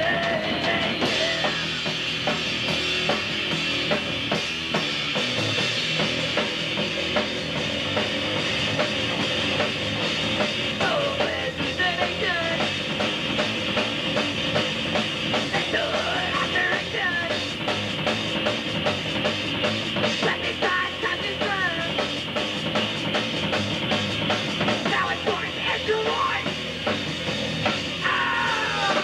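Hardcore punk band playing loud and without a break: distorted electric guitar, bass guitar and drum kit, with bending guitar notes.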